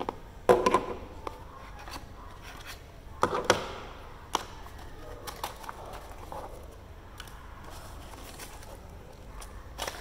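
Unboxing handling sounds from a plastic doorbell chime unit and its cardboard box: a few sharp knocks and clatters, loudest about half a second in and again just after three seconds, with lighter clicks and cardboard scraping between.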